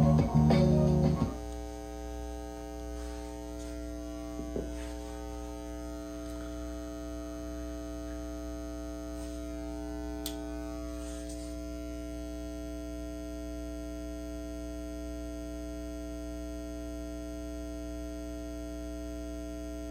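Carver TFM 4.0 magnetic-field power amplifier buzzing through the speakers: a steady mains-type buzz with many overtones, left alone after the music cuts off about a second in. It is a fault the amplifier has developed; it is listed as needing a recap, and the owner suspects something in its switching, since the buzz carries on with the power switch off.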